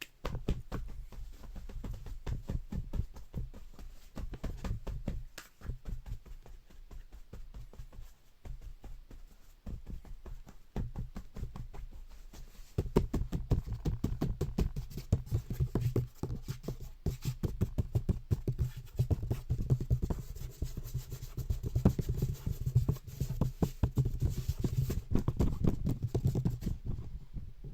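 Home-made sound effects performed live: rapid, irregular tapping and clicking with low thuds, getting louder about 13 seconds in.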